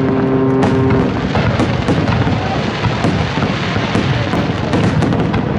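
High-altitude aerial fireworks shells bursting one after another: a continuous barrage of deep booms with crackling and sharp pops.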